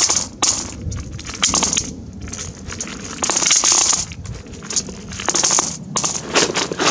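Russian 1- to 10-ruble coins poured from a plastic jug into a galvanized metal bucket of coins, clinking and jingling as they land on the pile. The coins come in spurts about every second, with short pauses between.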